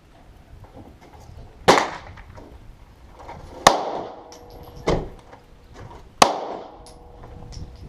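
Four gunshots at irregular intervals, each a sharp crack followed by a short echo; the fourth is about as loud as the first two and the third slightly softer.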